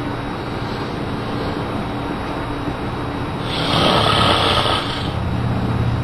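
A man snoring: one long, breathy snore about halfway through, over a steady low hum.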